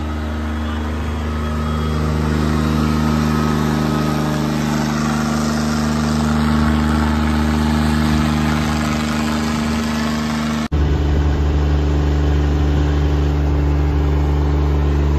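John Deere 5210 tractor engine running hard under heavy load, pulling against another tractor on a tow rope in a tug-of-war while its rear tyres spin. The engine note holds steady, then changes abruptly about eleven seconds in.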